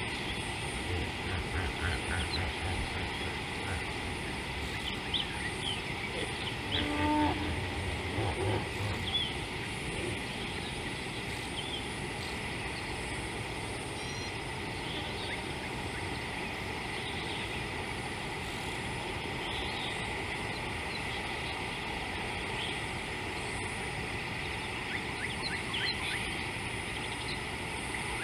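African elephants rumbling close by: a low, pulsing rumble about a second in and another about seven seconds in, the second briefly rising into a pitched call. Faint short chirps over a steady outdoor hiss.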